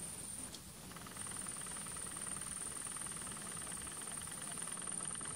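Insects chirping: a fast pulsing trill and a constant high-pitched hiss. The trill pauses and starts again about a second in.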